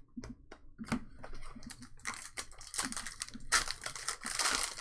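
Trading cards and their packaging being handled: a few light clicks, then, from about two seconds in, a dense stretch of crinkling and rustling.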